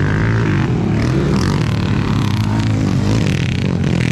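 Dirt-bike engines racing on a motocross track, their pitch rising and falling as the riders open and close the throttle.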